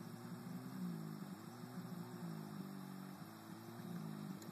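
Diesel jet ski engine running out on the water, faint, its pitch rising and falling as it changes speed.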